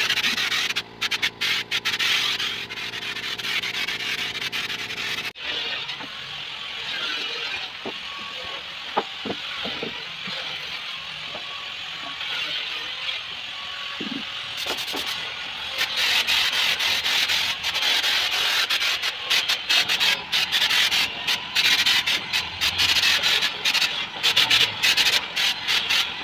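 Compressed-air hopper spray gun hissing as it sprays a thick cement-and-Plexibond texture coat. The hiss is steady for about five seconds, softer with a few clicks through the middle, then comes in rapid short bursts from about sixteen seconds on.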